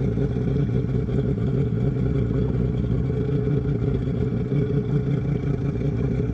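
Boat motor running steadily, a low even hum as the boat moves slowly over submerged timber.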